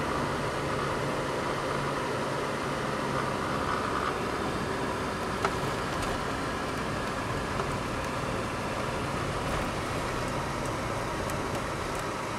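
Steady engine and road noise inside a moving Citroën car's cabin, with one short click about five and a half seconds in.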